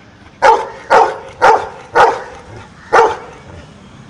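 Golden retriever giving five sharp, loud barks, about half a second apart with a longer pause before the last one. It is barking out the count in answer to an arithmetic question.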